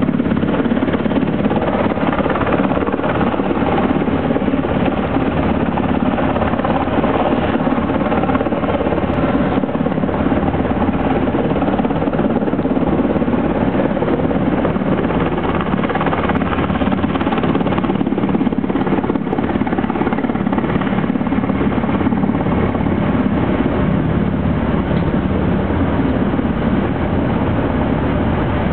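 The four turbofan engines of an Airbus A380 flying low, a loud, steady rumble that holds an even level throughout.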